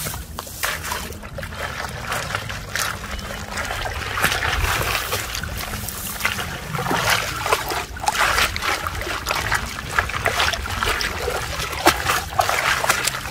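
Wet cast net being hauled by hand through shallow muddy pond water: repeated splashing and sloshing as the mesh is dragged and lifted.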